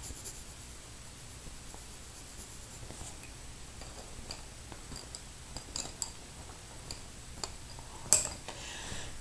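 Faint room tone with a few small scattered clicks, then one sharp click about eight seconds in as loose wooden drawing pencils are handled and knock together.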